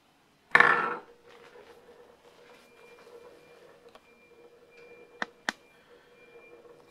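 A small precision spinning top twisted off the fingers onto a hard tabletop: a brief loud rush of noise at the launch, then a faint, steady hum while it spins on its point. Two sharp clicks sound a quarter second apart a little after five seconds in.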